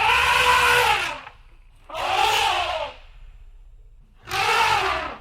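Asian elephant trumpeting three times, each blast about a second long with a brassy rasp and a pitch that rises then falls, with a low rumble beneath.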